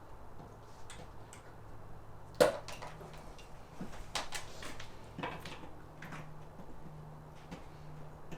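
Clips on a car's inner door being pried and popped loose with a tool: several sharp clicks and snaps, the loudest about two and a half seconds in.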